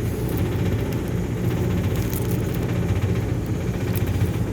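Rooftop HVAC unit running with a steady, low mechanical hum, and a couple of faint clicks about two and four seconds in.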